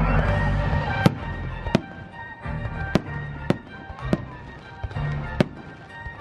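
Aerial fireworks shells bursting in a string of sharp bangs, roughly one a second, over music.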